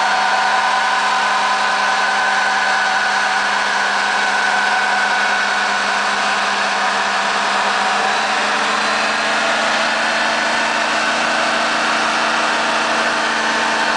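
Ford 6.0 Power Stroke V8 turbodiesel in a 2005 F-250, with aftermarket exhaust and cold air intake, running loud and steady under load while the rear tyres spin in a burnout. The pitch shifts slightly about eight seconds in.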